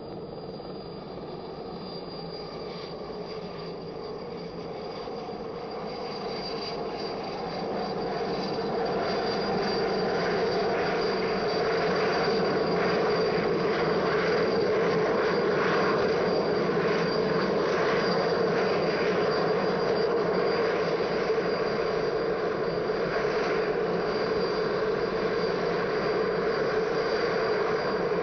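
Light helicopter's engine and rotor running, growing louder over several seconds as it comes in to land, then holding steady.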